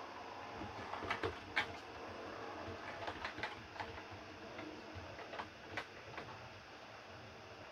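Heljan O gauge Class 50 model diesel locomotive running on the layout track, its wheels giving irregular clicks over the rail joints, the loudest about one and a half seconds in.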